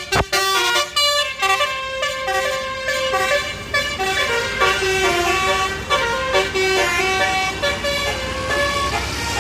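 Bus 'telolet basuri' musical air horn playing a melody: chords of several horn tones stepping from note to note a few times a second.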